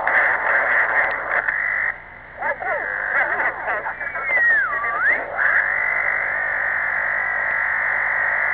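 Unidentified interference received on a CB radio between 27.572 and 27.590 MHz, heard through the receiver: a dense, warbling hiss of tones that keep shifting in pitch. About two seconds in it drops out briefly. Then several tones sweep up and down, one gliding down and back up, before the steady warbling hiss returns.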